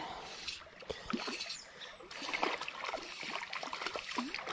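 A hooked brook trout splashing and thrashing at the water's surface, a run of short wet splashes and drips, busiest in the second half, over the creek's running water.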